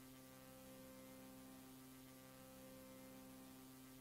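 Near silence with a faint, steady electrical hum and light hiss.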